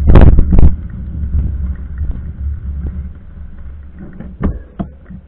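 Handling noise from an action camera mounted on a mountain bike's front fork as the bike is moved around: heavy knocks at the start, then a low rumble with scattered clicks, and two sharper clicks near the end.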